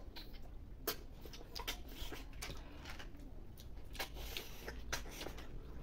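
Eating sounds: snails and rice being eaten by hand from a steel plate, with irregular sharp clicks of snail shells and small mouth sounds.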